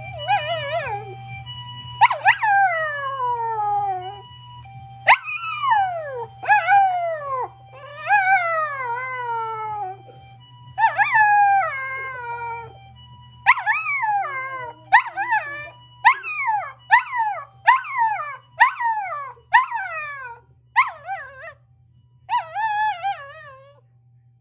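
Small dogs, a toy poodle and a Chihuahua–Maltese mix, howling along to a Japanese ambulance siren: a long run of howls that each start high and slide down, coming shorter and quicker in the second half. The siren's faint two-tone "pee-po" alternates beneath them and fades out about halfway through.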